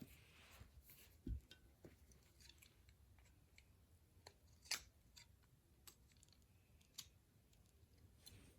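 Faint, scattered clicks and snips of small plastic toy parts being handled and cut, with a low thump about a second in and a sharper click near the middle.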